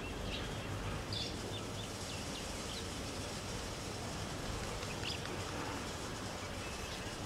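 Outdoor ambience: a steady low rumble and hiss, with a few short, high bird chirps scattered through.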